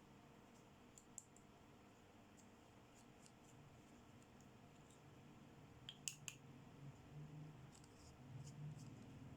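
Small plastic toy accessories being handled: faint, scattered clicks and light taps, with a sharper pair of clicks about six seconds in, over a low steady hum.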